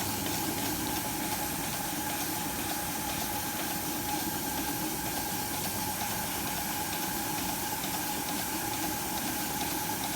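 Allen Mogul steam locomotive under steam, hissing steadily, with a faint even hum underneath.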